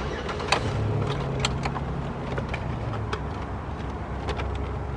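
Scattered light clicks and taps of plastic car-door trim being handled and pressed into place, over a steady low hum.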